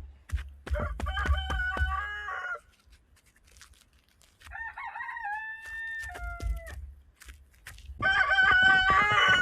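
Roosters crowing three times in turn, each crow a long held call; the last, near the end, is the loudest. Soft knocks and a low rumble sound underneath.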